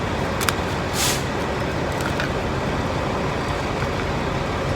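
Steady rumble of vehicle engine and traffic noise, with a couple of small clicks and then a brief sharp hiss about a second in as a small butane torch is opened and charged.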